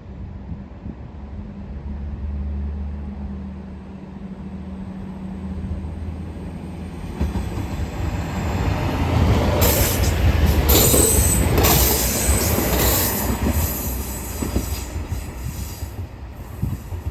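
A train running through the station: a low steady hum at first, then a rumble that builds from about seven seconds in, with the wheels squealing on the rails for several seconds at its loudest.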